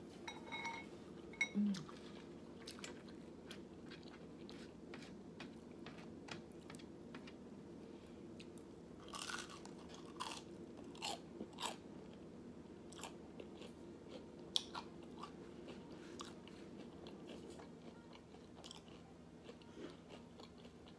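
A person chewing and biting food, with scattered sharp crackles and a louder run of them about nine to twelve seconds in.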